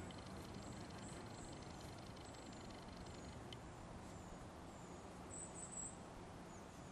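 Faint outdoor ambience: high, thin bird chirps repeating, with a brief louder flurry of them about five and a half seconds in, over a low background rumble. For the first three seconds or so a faint, fast, even buzz runs beneath them.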